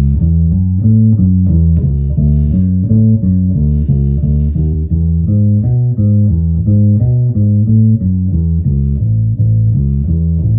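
Birdsong Hy5 electric bass strung with D'Addario Chromes flatwound strings playing a steady lick of plucked notes, about three a second. The neck pickup is full on, and the bridge pickup and tone are each rolled back to about 75%.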